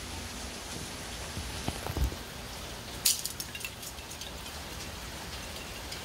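Hurricane rain falling steadily, with a couple of low thumps about two seconds in and a short burst of sharp clicks about a second later.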